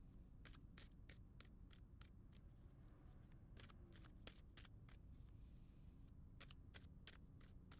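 A tarot deck being shuffled by hand, giving faint, irregular soft clicks and flicks of card against card, about two or three a second.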